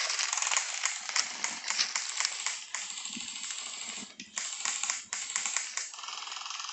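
Airsoft rifles firing on full auto: long runs of rapid clicking shots, broken by brief pauses about four and five seconds in.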